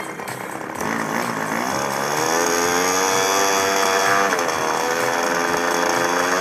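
Small engine of a flying lawn mower revving up about a second in, then running at high revs with its pitch wavering up and down.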